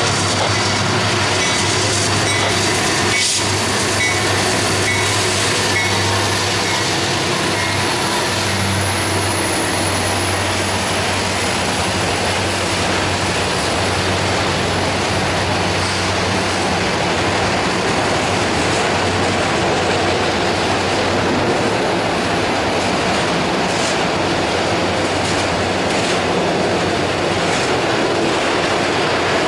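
Norfolk Southern freight train rolling past: a low diesel locomotive engine drone that stops about 26 seconds in, over the steady rumble of autorack cars' steel wheels on the rails.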